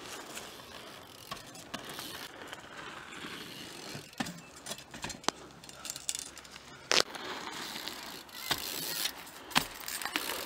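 A BMX bike ridden over a dirt track: rattling and clicking from the bike with a hiss of tyres on the ground, broken by several sharp knocks, the loudest about seven seconds in.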